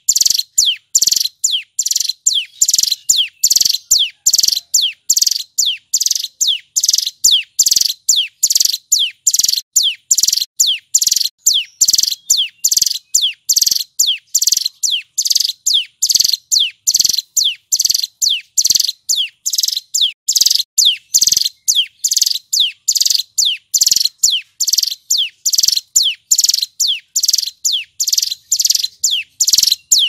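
Male ciblek gunung (mountain prinia) singing loudly: a continuous rapid series of sharp, high notes, each falling quickly in pitch, about two to three a second without a break.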